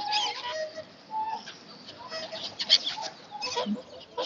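A crowd of ducks and geese calling close by, short overlapping calls, mixed with brief flurries of wing flapping.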